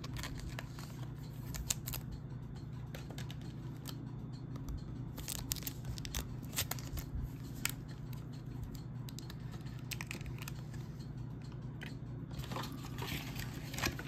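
Trading cards and their packaging being handled: scattered light rustles, crinkles and small clicks, busier near the end, over a steady low hum.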